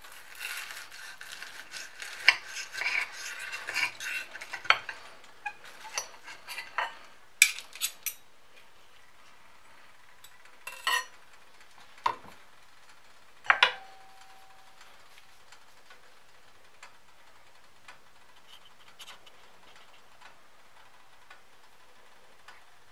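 Knife sawing through the crisp breadcrumb crust of a fried chicken cutlet, crunching and crackling, with the blade and a fork clicking against the plate. A few separate clinks of metal on the plate follow, the last ringing briefly.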